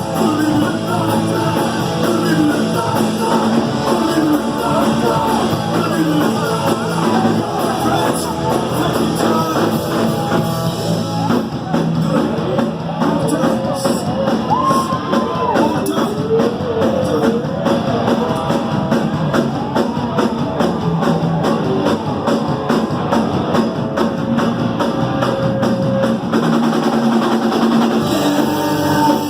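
Punk rock band playing a song: a voice singing over guitar and a drum kit.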